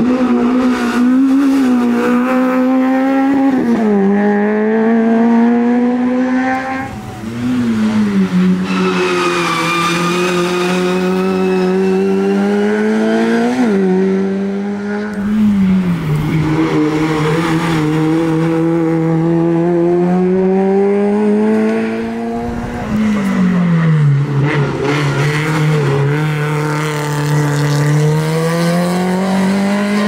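Rally car engine running hard on a mountain stage, the note holding or climbing slowly and then dropping several times as it changes gear.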